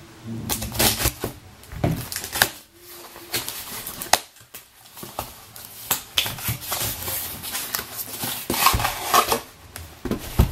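Cardboard shipping box being handled and opened: irregular knocks, scrapes and rustling as the box is tipped, its flaps worked open and the boxed audio interface slid out. A short lull comes about four seconds in, and there is a busier cluster of handling noise near the end.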